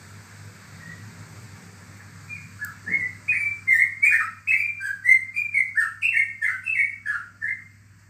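Caged yellow-vented bulbul (trucukan) singing a rapid string of short whistled notes, many dropping in pitch, starting about two and a half seconds in and stopping near the end. A faint steady low hum runs underneath.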